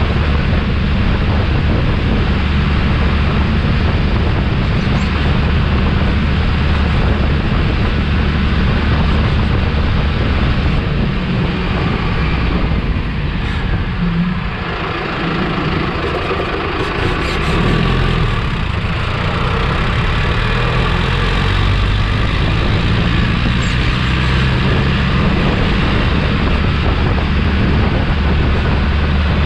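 Mahindra Arjun 555 tractor's diesel engine running steadily under load while driving at full throttle. The engine sound dips for a few seconds about halfway through, then comes back to its steady note.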